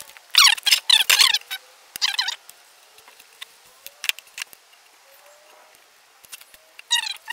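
Metal scraper squeaking as it is pushed across a plastic go-kart body panel in short strokes: a quick run of squeals in the first second or so, another about two seconds in, and more starting just before the end.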